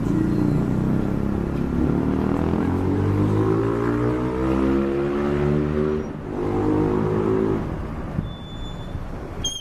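Car engine accelerating, its pitch climbing steadily for several seconds. It dips about six seconds in, holds steady briefly, then fades away. A couple of faint high chirps come near the end.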